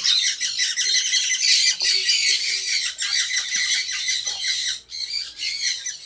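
Many small birds chattering and squawking together: a dense, high-pitched din of short overlapping calls without a break.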